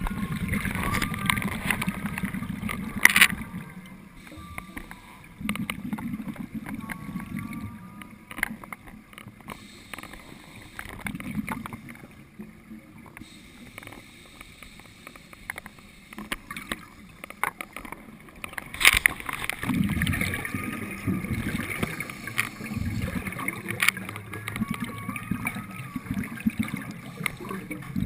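Scuba regulator exhalations heard underwater: bursts of bubbling rush lasting a few seconds each, with quieter gaps between breaths and a few sharp clicks.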